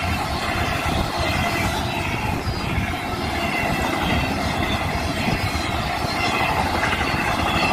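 Union Pacific intermodal freight train passing close by: a steady, loud rumble and rattle of the cars on the rails, with faint thin high tones over it.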